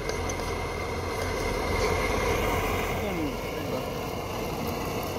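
Portable gas camping stove burner running with a steady rushing roar under a cooking pot.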